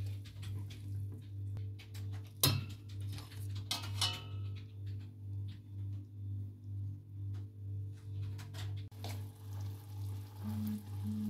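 A fork clinks against a stainless steel stockpot while a seasoned pork roast is turned in it, with two sharp ringing clinks, one about two and a half seconds in and one about four seconds in. Under them is a steady low hum that swells and fades in an even rhythm.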